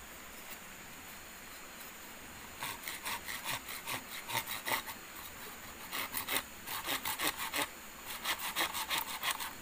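Hand saw cutting through a green bamboo stalk in quick back-and-forth rasping strokes, about three a second. The sawing starts about two and a half seconds in and stops twice briefly.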